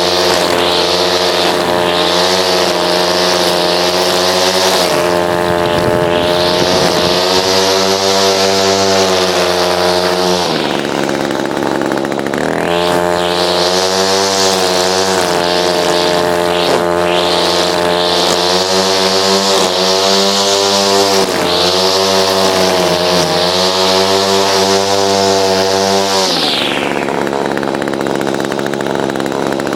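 Gas string trimmer's small two-stroke engine running at high throttle, its pitch wavering as it cuts. It drops to idle briefly about a third of the way in, revs back up, and drops to idle again near the end.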